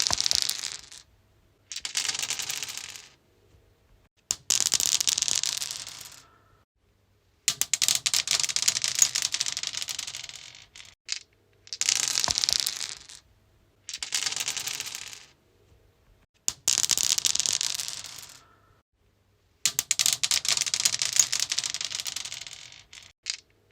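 Dice rolling and clattering across a stone surface, over and over: each roll is a quick run of hard clicks that tumbles for one to three seconds and dies away, with a short silence before the next, about eight rolls in all.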